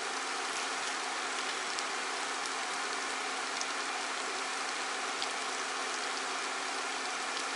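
Ground chuck sizzling steadily in a frying pan on an induction cooktop, a continuous frying hiss with a few faint crackles and a faint steady hum underneath.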